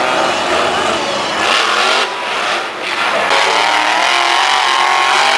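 Monster truck's supercharged V8 engine revving hard, its pitch rising and falling, with a brief drop in loudness about two seconds in.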